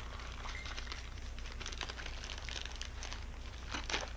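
A candy package being handled and opened, with irregular crinkling and crackling of the wrapper.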